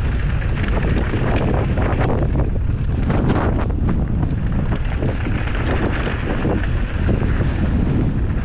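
Heavy wind buffeting on the microphone of a camera riding on a mountain bike at speed down a dirt trail, mixed with the steady rush of tyres on loose dirt and gravel and small knocks and rattles from the bike.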